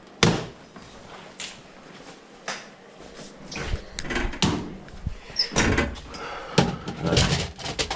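Knocks and clatter of objects being picked up and moved about, with a sharp knock just after the start and busier rattling and rustling in the second half.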